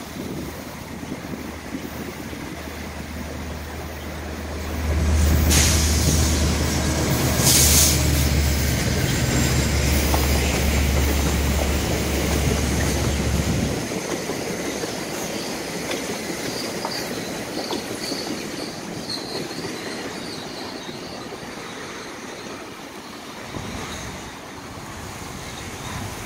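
Commuter train passing close by. The diesel locomotive's engine drones low and loud as it goes past, and the drone falls away about two-thirds of the way in. The bi-level passenger cars then roll by with steady wheel-on-rail noise and a string of faint high wheel squeals.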